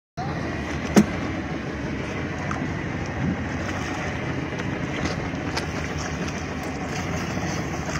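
Steady rushing noise of a small open boat under way at sea, engine, water and wind together, with a single sharp knock about a second in.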